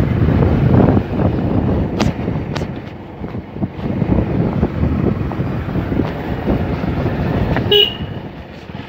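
Motorbike ride: wind buffeting the microphone over the engine and road noise, rising and falling unevenly. There is a brief beep near the end.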